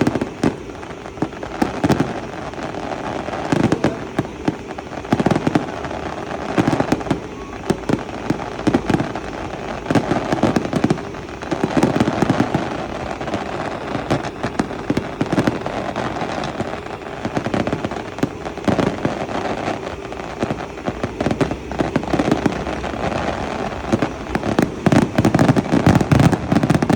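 Fireworks display: an unbroken run of bangs and crackles, with louder clusters every second or two and a dense barrage near the end.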